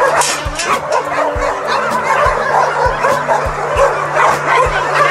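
Several shelter dogs barking and yipping excitedly, with background music that has a steady beat.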